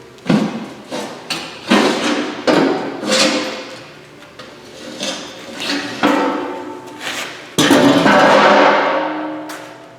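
A string of irregular metal knocks and clanks, each leaving a ringing tone, with a louder, longer clang about three-quarters of the way through that rings and fades over a second or two.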